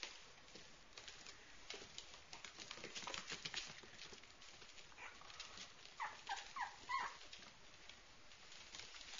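Small puppies whimpering: a few short, high squeaks falling in pitch, clustered about two-thirds of the way in, among light scattered clicks.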